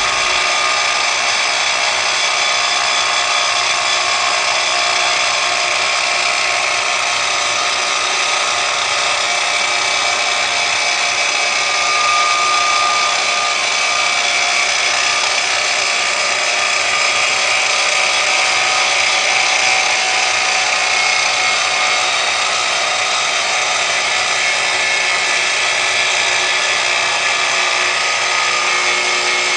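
Angle grinder with an abrasive disc, held in a homemade jig, cutting into a steel plate: a steady high whine over a grinding hiss that holds unchanged.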